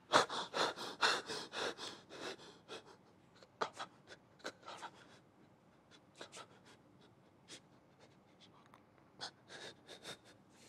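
A man breathing out in quick, breathy puffs, about four a second, fading away over the first two seconds. After that only a few faint breaths and small clicks are heard.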